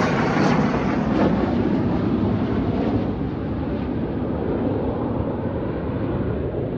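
Loud jet aircraft roar that slowly fades and grows duller as the jet flies away.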